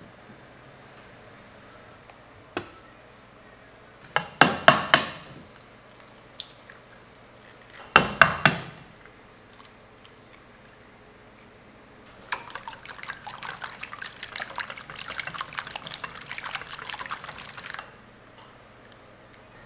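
Eggs cracked against a stainless steel bowl: two quick clusters of sharp taps a few seconds apart. Then a wire whisk beats the eggs in the steel bowl, a fast, steady clinking for about five seconds.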